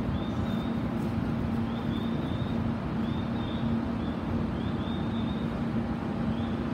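Railway platform ambience: a steady low hum over a wash of noise, with short high chirps coming in small groups every second or so.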